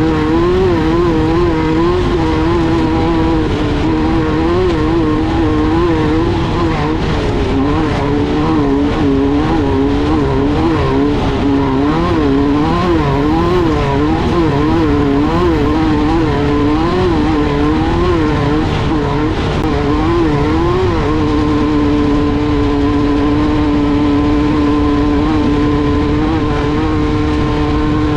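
Air-cooled VW 1600 engine of a Class 1/2-1600 desert race buggy running hard. Its pitch wavers quickly up and down, then holds steady over the last several seconds.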